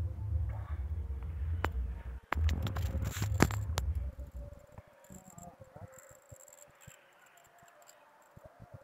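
Low, uneven rumble on the microphone with a few sharp knocks for the first four seconds or so, then a quieter background of faint insect chirping.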